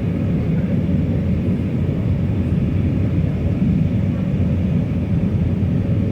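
Steady low rumble of an Airbus A319 airliner heard from inside the passenger cabin: the engines and airflow droning evenly, with no change in pitch or level.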